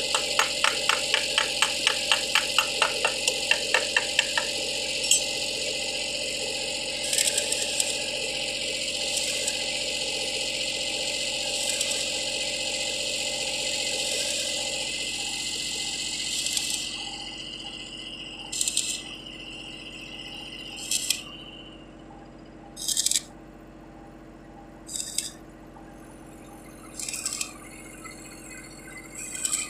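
Pipe-welding shop work: a fast run of clicks, about five a second, then a steady high hiss that stops about sixteen seconds in, followed by short hissing bursts about every two seconds.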